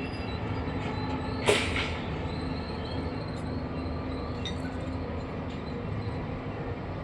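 Heavy construction machine's engine running steadily, with one sharp metallic clank about one and a half seconds in and a few faint clinks later.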